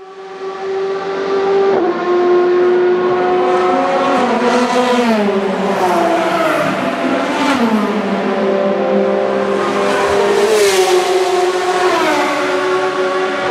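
Endurance race car engines running on a circuit, several pitched engine notes at once. Their pitch falls in steps a few seconds in and again near the end, as when downshifting under braking.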